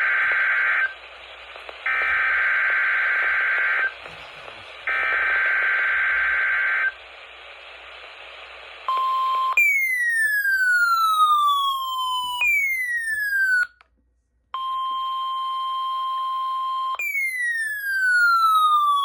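NOAA Weather Radio test signal through a radio receiver. It begins with three buzzy digital SAME header bursts, each about two seconds long, separated by about a second of static hiss. About nine seconds in, the steady 1050 Hz warning alarm tone starts, broken by several tones that sweep downward in pitch and a brief gap of silence.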